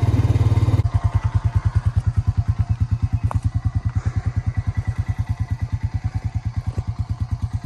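Small farm vehicle's engine running, then about a second in settling to a loping idle with an even beat of roughly ten pulses a second.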